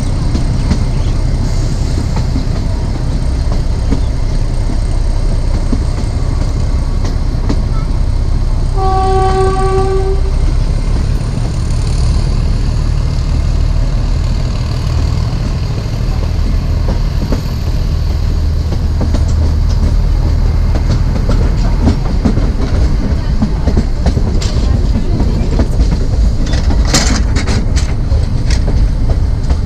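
Narrow gauge train running, its wheels rumbling and clattering steadily over the track, heard from on board. The diesel locomotive's horn sounds once for about a second and a half, about nine seconds in, and a few sharp clicks come near the end.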